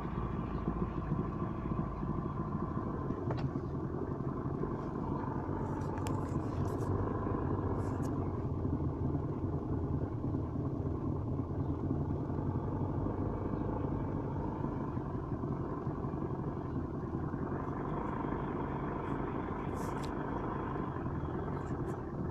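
Ford Sierra 2.0i engine running steadily, with a knock from the manual gearbox and clutch. The knock comes from a missing input-shaft pilot bearing in the crankshaft and about 1 mm of wear in the flywheel.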